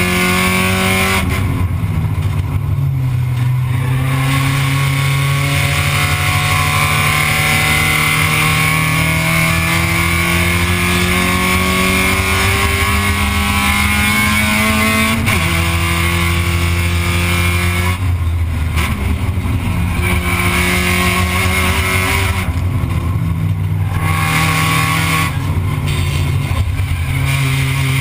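Spec Miata's four-cylinder engine heard from inside the cockpit at racing speed: a long, slow rise in pitch under power, a sudden drop about halfway through at a gear change, then several short lifts off the throttle with dips in pitch before it pulls again near the end.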